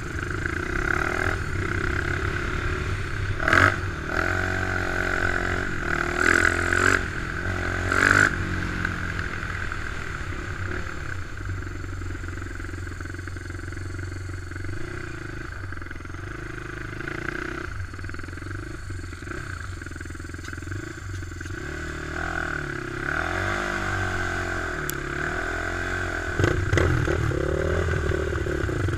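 Racing ATV engine at high revs, its pitch rising and falling as the rider gets on and off the throttle on the ice track, with a few loud clattering knocks in the first several seconds. The revs settle for a stretch in the middle, then climb and fall again near the end.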